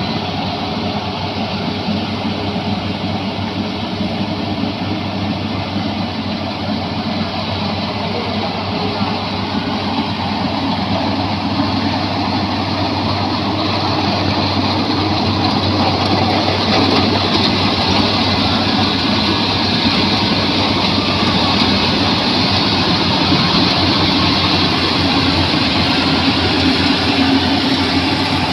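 Rice combine harvester running steadily, engine and machinery making a constant loud hum, growing slightly louder about halfway through.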